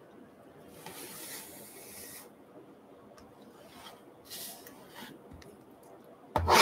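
A cardboard trading-card box being slid and handled on a wooden tabletop: a soft rubbing scrape about a second in and a shorter one about four seconds in, a few light ticks, and a sharp knock near the end.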